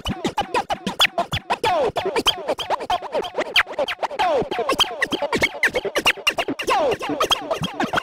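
Turntable scratching: a vinyl record worked back and forth by hand in quick chopped cuts, with short pitch sweeps, mostly falling, several a second.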